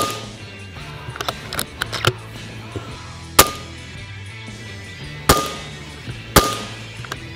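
A string of sharp single shots from a ZBROIA Sapsan 550/300 PCP air rifle in 6.35 mm (.25) firing heavy pellets, spaced a few seconds apart at first and then about a second apart, each shot followed by a brief high ring. Background music plays underneath.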